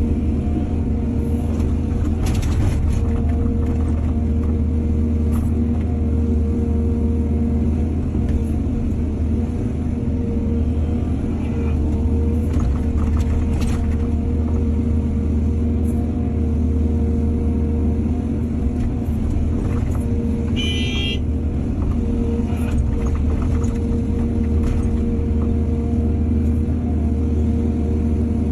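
Excavator's diesel engine running steadily at work, with a few brief knocks and a short high squeal about twenty seconds in.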